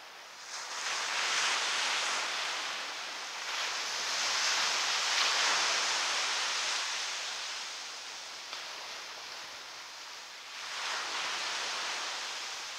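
Ocean surf breaking and washing up a sandy beach: a steady hiss that swells about a second in, eases off around eight to ten seconds in, and swells again near the end.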